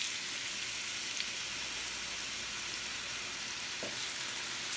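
Seasoned chicken pieces searing in hot olive oil in a preheated pan: a steady frying sizzle as more pieces are laid in with tongs, with a couple of faint clicks.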